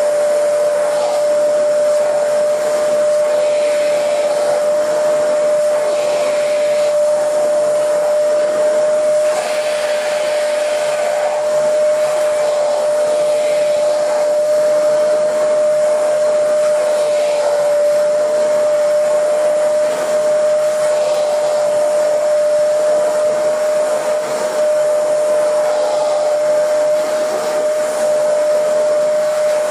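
Vacuum cleaner running steadily: a constant motor whine on one high tone over a rush of air, the airflow sound brightening and easing now and then.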